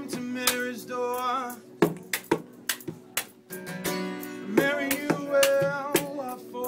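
Music: a singer with plucked and strummed guitar accompaniment.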